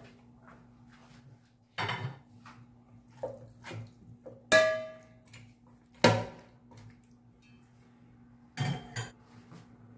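A metal spoon clanking and scraping against an aluminium pot as raw chicken pieces are stirred. The knocks are irregular, and one about halfway through rings on. A faint steady hum runs underneath.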